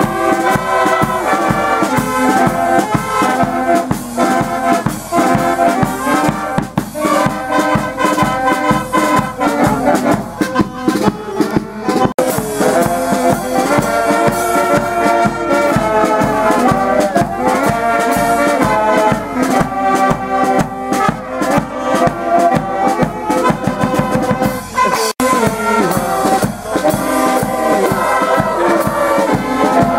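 Brass band music playing a lively tune over a steady beat, cutting out for an instant twice.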